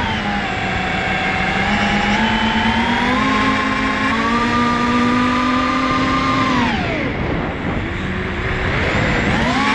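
FPV quadcopter's electric motors whining, the pitch stepping up and down with throttle. About two-thirds of the way through the pitch falls steeply as the throttle is cut, then climbs back up near the end.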